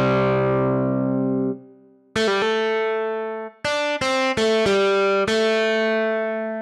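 An AAS software synthesizer preset played as a keyboard-like patch. A held chord dies away in the first second and a half, then a short phrase of single notes starts about two seconds in, and its last note is held.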